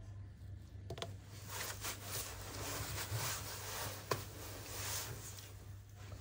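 Faint handling noises of phone reassembly: light clicks of tweezers and small parts, about a second in and again near four seconds, with soft scraping in between, over a low steady hum.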